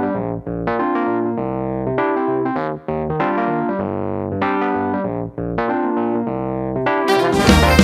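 Music: a keyboard with an electric-piano sound plays sustained chords on its own as a rock song's intro, changing chord about once a second. Near the end the full band comes in suddenly and louder, with drums and guitar.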